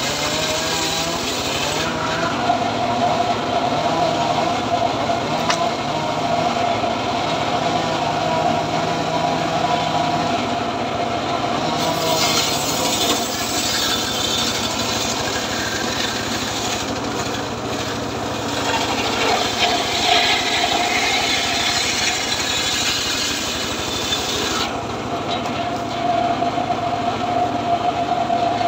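Homemade engine-driven circular saw running and ripping dry acacia wood: a steady engine drone under the blade's steady whine, turning harsher and hissier for several seconds in the middle while the blade cuts through the wood.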